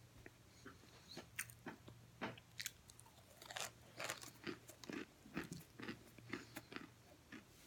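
Oven-baked cornstarch chunks being bitten and chewed: many quick, irregular crunches close to the mouth, over a faint steady low hum.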